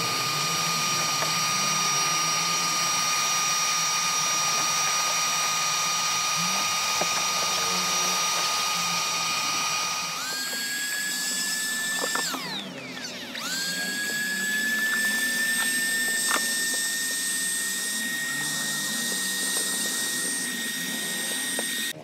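Vacuum cleaner motor running with a steady high-pitched whine as its hose sucks leaves and grit off a car boot carpet. About halfway through the whine steps up in pitch. Shortly after, the motor briefly winds down and spins back up, then runs steadily again.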